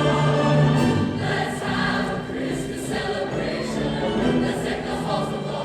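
A choir singing a seasonal song of peace and goodwill, with held notes that turn softer about a second in.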